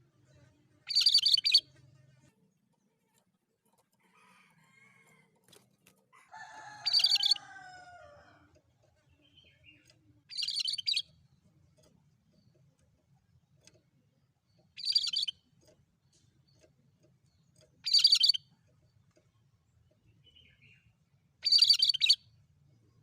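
Cucak kerinci songbird singing in six short, loud, rapid high-pitched bursts spaced a few seconds apart. Around six seconds in, a lower call with falling pitch overlaps one of the bursts.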